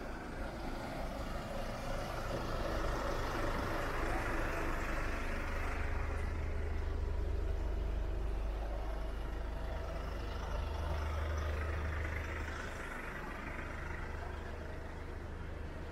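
A motor vehicle running close by, its engine rumbling steadily from about five seconds in, with its noise swelling twice.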